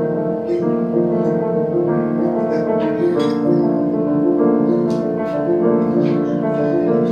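Solo piano playing a gentle introduction of sustained chords, notes changing every half second or so.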